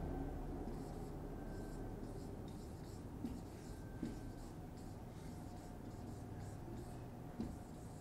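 Marker pen writing on a whiteboard: a run of short strokes, with three light knocks about three, four and seven seconds in.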